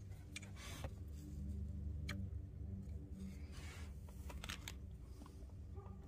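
Light clicks and scrapes as a Gen 1 Prius fuel rail carrying its injectors is handled and set down onto the engine's injector ports, over a steady low background hum.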